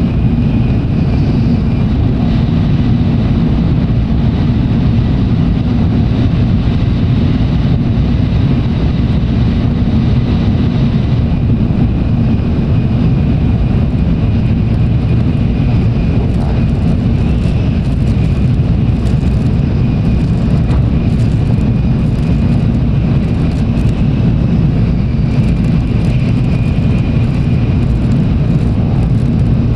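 Cabin noise of a Tokaido Shinkansen bullet train running at speed: a loud, steady low rumble with a thin, steady high-pitched tone over it and faint light clicks in the second half.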